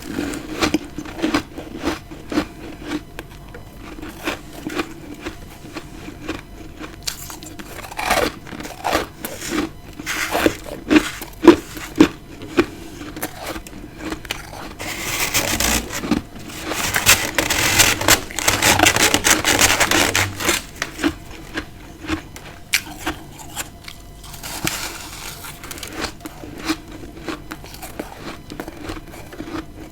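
A person biting and chewing freezer frost: a run of sharp, crisp crunches, with a denser, louder stretch of chewing about halfway through.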